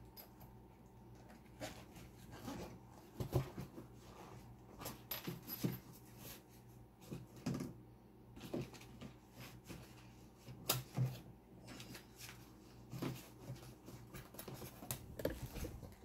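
Faint, irregular clicks and light taps from handling small metal lock parts, over a steady low hum.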